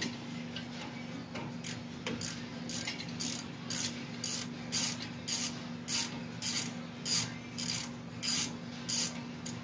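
Hand ratchet swung back and forth to back out a bolt, with a short rattle of pawl clicks on each return stroke, about two a second, starting about a second and a half in and growing louder.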